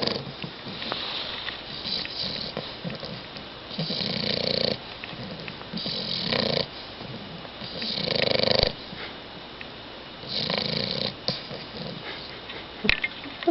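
Bulldog puppy snoring, one snore about every two seconds. A couple of short clicks sound near the end.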